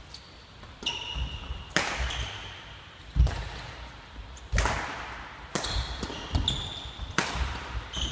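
A badminton rally: sharp racket strikes on a shuttlecock every second or so, echoing in a large sports hall, with sneakers squeaking in short high chirps and footfalls thudding on the wooden floor between shots.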